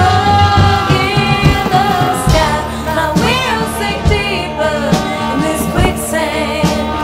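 Background song with singing over a steady beat and bass.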